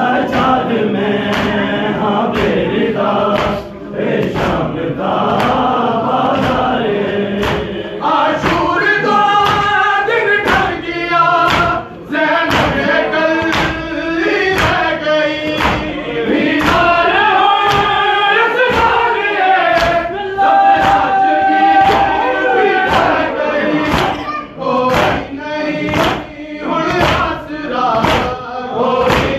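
Crowd of men chanting a mourning lament together, with sharp slaps of hands striking chests (matam) keeping a regular beat through the chant.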